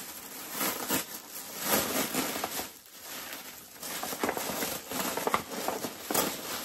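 Packaging wrap rustling and crinkling in irregular bursts as a parcel is unwrapped by hand, with a brief lull about halfway through.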